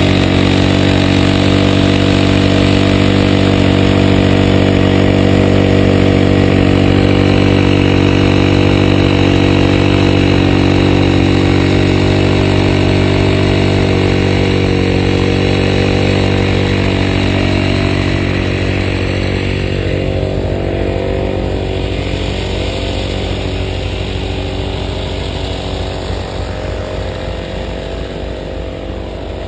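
An engine running steadily at a constant speed, close and loud. It gradually fades over the last ten seconds or so.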